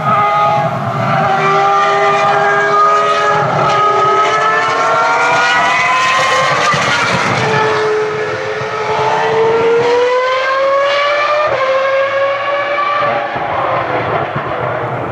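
Ferrari racing car engine at high revs, heard from a distance, accelerating: the pitch climbs steadily and drops back at each upshift, several times over.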